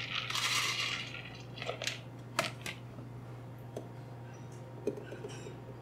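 Whole blanched almonds poured from a bowl into a food processor's stainless-steel bowl, a rattling pour lasting about a second, followed by a few scattered clicks as the last nuts drop. A steady low hum runs underneath.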